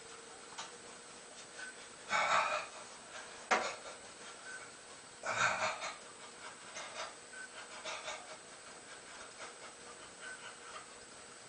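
Heavy breathing of a man exercising: two forceful, noisy exhales about three seconds apart, with a single sharp click between them.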